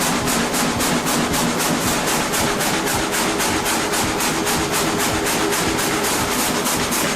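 Reciprocating multi-blade frame saw running, a steady fast clatter of about five strokes a second over a constant machine hum.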